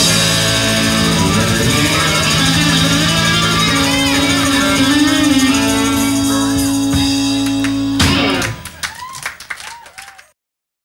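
Live blues band with guitar ringing out a loud final chord that stops about eight seconds in, followed by a few short scattered sounds before the recording ends.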